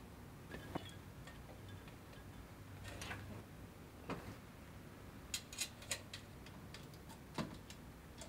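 Faint, scattered light clicks and taps from wires and fingers handling a bare aluminium amplifier chassis, a small cluster of them a little past the middle.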